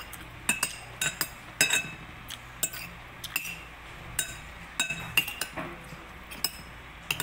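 Metal spoon and fork clinking and scraping against a plate as food is gathered and cut, over a dozen sharp ringing clinks at irregular intervals.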